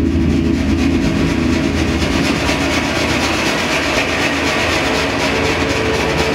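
Soundtrack of a stage dance piece played over a hall's speakers: a loud, steady, dense noisy drone with a few held tones. A new higher held tone comes in near the end.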